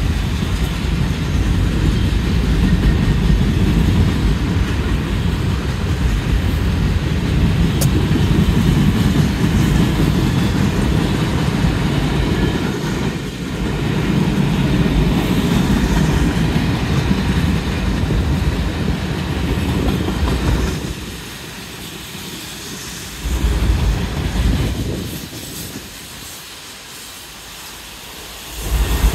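Freight cars of a long mixed manifest train rolling past: a steady rumble of steel wheels on rail with some clickety-clack. The rumble drops quieter twice in the last eight seconds and picks up again at the very end.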